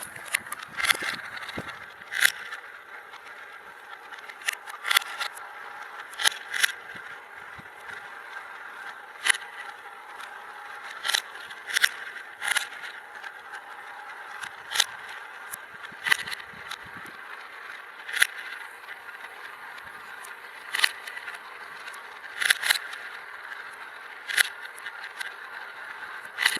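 Marbles running through a marble run's funnels: a steady rolling whir, broken every second or two by sharp clicks as marbles strike and drop between track pieces.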